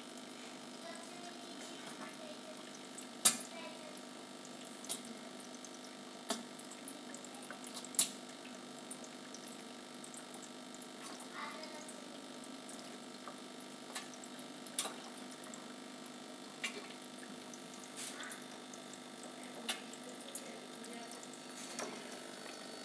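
Steady splashing and trickling of water circulated by an aquarium filter, with a low hum. About nine sharp taps or clicks are scattered through it, the loudest about three seconds in.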